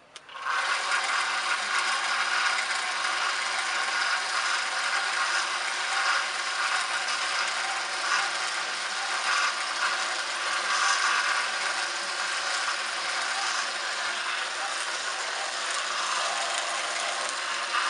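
Small 1x30 belt sander with a leather stropping belt switched on about half a second in, then running at a steady speed.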